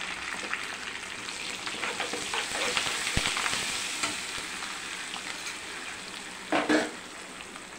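Spices, curry leaves and onion sizzling and spluttering in hot oil and ghee in a nonstick kadai while a perforated metal ladle stirs through them, with a brief louder scrape near the end.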